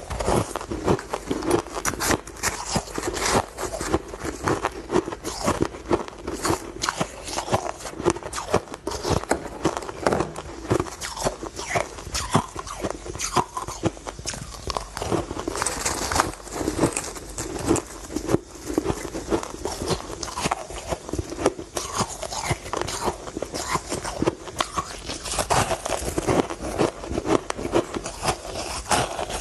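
Close-up chewing of powdery shaved ice: a dense, continuous run of crisp crunches, several a second, as mouthfuls are bitten and ground between the teeth.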